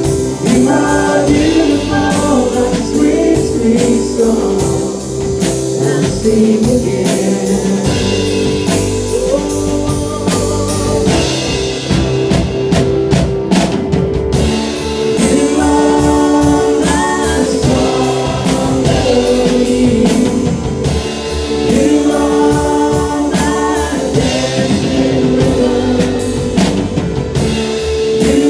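A live worship band plays a song, with several voices singing over electric guitars, a drum kit and keyboard.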